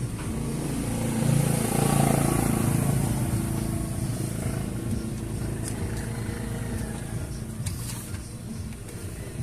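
Epson printer-scanner running a copy: its motor whirring, swelling louder about a second in and then holding steady, with a few light clicks late on.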